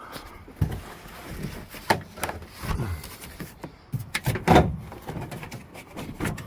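Irregular knocks, clunks and rattles of car interior parts being handled and moved inside a stripped car, the loudest clunk about four and a half seconds in.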